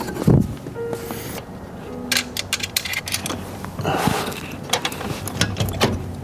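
Plastic steering-column trim on an Audi TT RS Mk3 being pried off and handled: a run of irregular clicks and knocks, with a scraping rustle about four seconds in.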